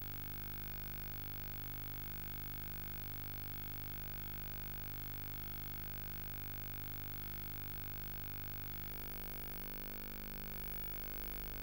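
Steady electrical hum and hiss from a videotape transfer with no program sound. The hum's tone shifts slightly about nine seconds in.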